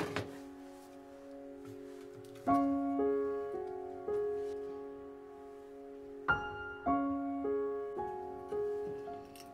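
Slow, gentle piano background music: single notes and chords that start and then fade. There are a few light knocks near the start.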